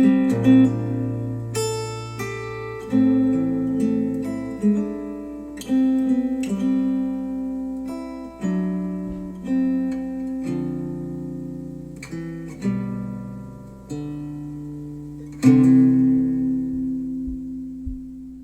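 Acoustic guitar music played back through Wharfedale Denton 80th bookshelf speakers driven by a NAD C 388 integrated amplifier: slow plucked notes and chords, each struck and left to ring out.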